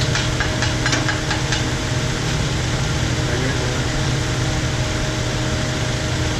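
Steady drone of a shop fan with a low hum, over which a handful of quick tool clicks and clinks sound in the first second and a half as work goes on on the engine.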